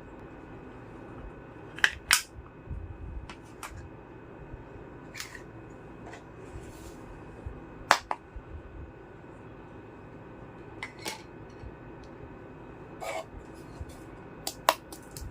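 Small plastic toy kitchen pieces being handled: scattered sharp clicks and taps, a dozen or so, loudest about two seconds in and again near the middle, over a steady faint hum.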